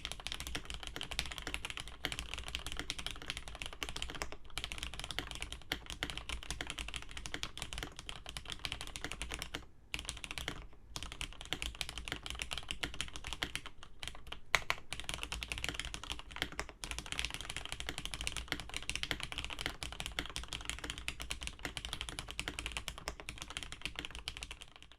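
Steady fast typing on a Cherry G80-1800 keyboard with Cherry MX Black linear switches, a dense stream of key strokes with a few short pauses. One key strike about fourteen and a half seconds in is louder than the rest.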